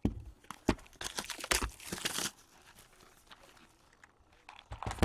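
Hockey card packaging being handled and torn open: crinkling and tearing of wrappers with sharp knocks, busiest in the first two seconds, then quieter handling with scattered small ticks and another crackle near the end.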